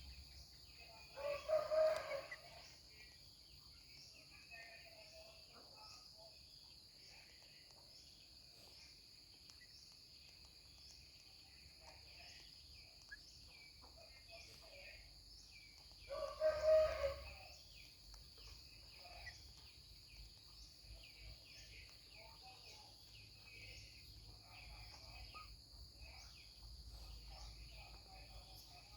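A bird calling twice, about fifteen seconds apart, each call loud and about a second long, over a faint steady high-pitched hum.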